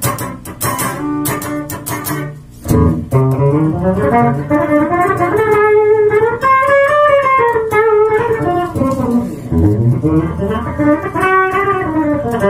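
Cort M600T electric guitar played on its bridge EMG-HZ humbucker. A quick run of picked notes comes first, then from about three seconds in a slower lead line whose held notes are bent and slid up and down in pitch.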